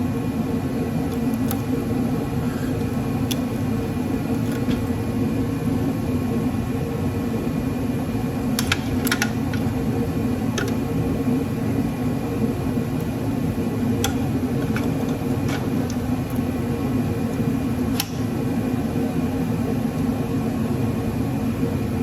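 Shop heater running with a steady mechanical hum. A few sharp clicks sound over it, a pair about nine seconds in and single ones later.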